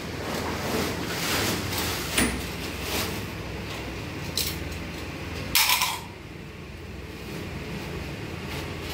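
Handling and scraping noises from work on MV cable joint parts over a steady low hum, with a short, louder rustle about five and a half seconds in that cuts off suddenly.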